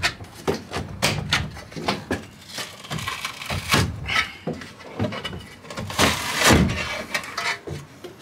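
Irregular metal knocks, clanks and scrapes as a steel support strut is worked loose from the inside of a van body after being ground free at its four attachment points, with a couple of longer creaking scrapes about four and six and a half seconds in.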